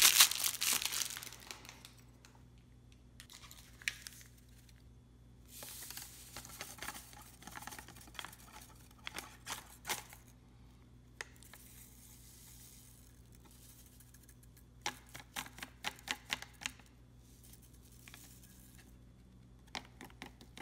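An MRE beverage-powder pouch and its plastic packaging crinkle and tear, loudest in the first second or two. Scattered crackles and rustles follow as the pouch is handled and emptied into a glass, over a faint steady low hum.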